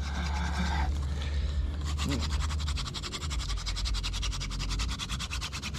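Hand-drill friction fire: a wooden spindle spun back and forth between the palms, its tip grinding in the fireboard notch with a fast, even scratching rhythm.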